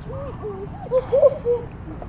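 Chickens clucking: a quick run of short calls, loudest about a second in, over a steady low rumble.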